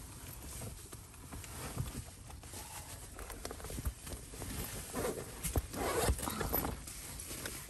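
Clothes and a fabric bag being handled and shuffled about in a car's cabin: rustling cloth with small knocks and clicks, busiest about five to six and a half seconds in.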